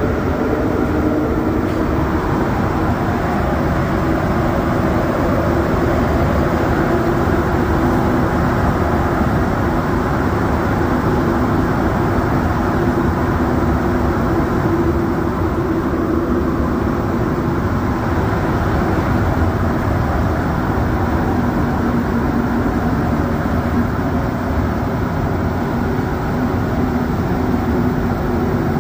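Inside a Montreal Metro AZUR train, a rubber-tyred metro train, running at speed through a tunnel: a loud, steady rumble with a low hum held under it.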